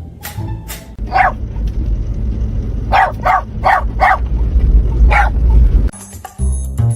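A dog barking: one bark about a second in, a quick run of four barks around three to four seconds, and one more bark near five seconds, over a heavy low rumble.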